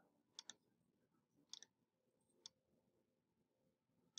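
Faint, sharp clicks of a computer mouse button, mostly in quick pairs (press and release), a few times over near silence.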